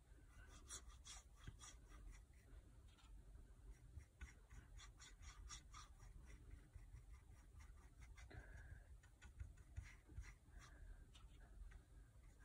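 Faint, soft strokes of a paintbrush brushing acrylic paint onto a wooden cutting board, a series of light irregular scratches over a low room hum.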